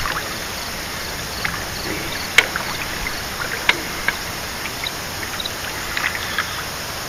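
Water splashing as a hooked carp thrashes at the surface close to the bank. There are a few short, sharp splashes and clicks over a steady background hiss.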